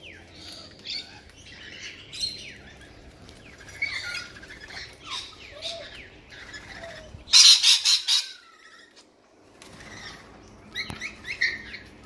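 A flock of rainbow lorikeets screeching and chattering while feeding at a seed tray, with a loud burst of harsh screeching about seven seconds in.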